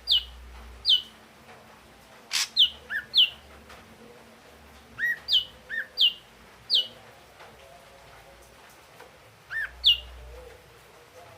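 Ashy drongo calling: loud, short whistled notes, some dropping steeply in pitch and others short lower arched notes, given in bursts of two to four with pauses between. A single sharp click about two and a half seconds in.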